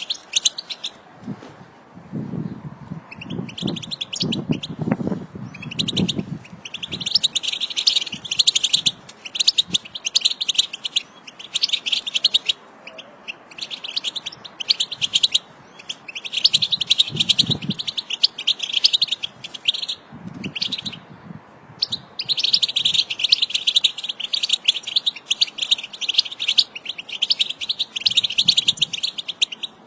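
A flock of European goldfinches twittering: fast, high, tinkling chatter from many birds at once, coming in bursts of a second or two with short breaks between.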